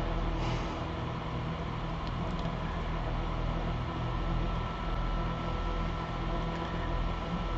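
Small fan running steadily to exhaust soldering fumes: an even motor hum with a low rumble. A brief soft hiss about half a second in.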